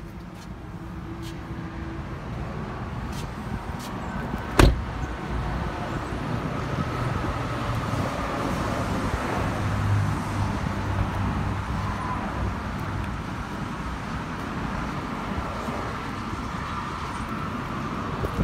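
A car door shuts once about four and a half seconds in, followed by steady traffic noise.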